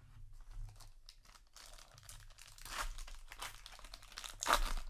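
Crinkling and tearing of a trading-card booster pack wrapper being handled, in irregular rustling bursts, loudest about three seconds in and again near the end.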